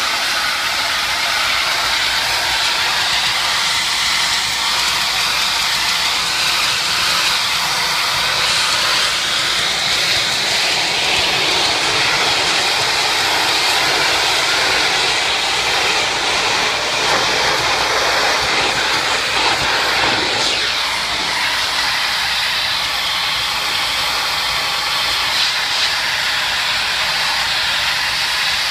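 Pressure-washer wand spraying a jet of water onto a tile floor: a loud, steady hiss of spray striking the tiles.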